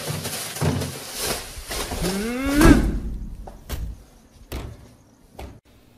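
Plastic trash bag rustling as it is pulled out of a wastebasket, with a brief rising pitched sound about two seconds in. Then a few scattered knocks.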